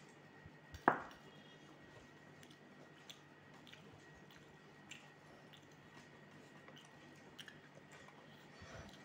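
Fingers mixing and squishing rice on a metal plate, with faint scattered clicks and one sharp tap against the plate about a second in.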